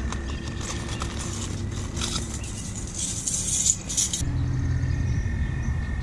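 Hands rummaging through a soft fishing tackle bag: tackle and packaging rattling and rustling, with a denser burst of rustling that stops sharply about four seconds in.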